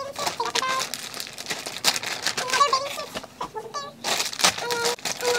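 Clear plastic bags crinkling as swimsuits are pulled out and handled, with a woman's voice making short, high-pitched vocal sounds in between.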